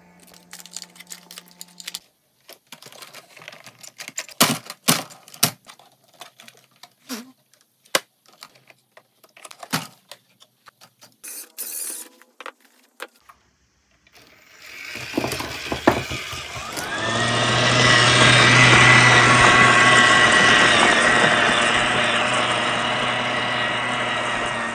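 Scattered clicks and knocks of the RC car being handled. About fifteen seconds in, the WPL C74-1 Suzuki Jimny 1/10-scale RC car's electric motor and gearbox start with a rising whine, then run at a steady pitch.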